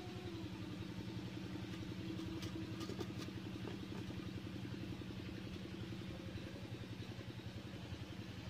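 A small engine running steadily at idle with a fast, even beat. A few faint clicks come about two to three seconds in.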